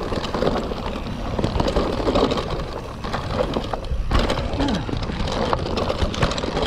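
Mountain bike running fast down a dirt forest trail: tyres on loose dirt and a constant rattle of the drivetrain, with many sharp clicks and knocks as it hits bumps. The rider finds the bike very rattly and thinks a link should come out of the chain, which points to a slapping, over-long chain.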